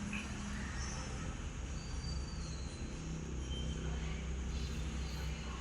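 Steady low mechanical hum that holds the same level and pitch throughout.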